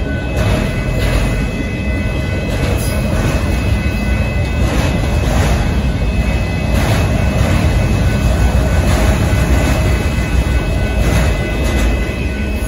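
Freight train cars rolling past at a grade crossing: a steady, loud rumble and rattle of wheels on rail, with irregular clanks from the wheels and a faint high steady ring above it.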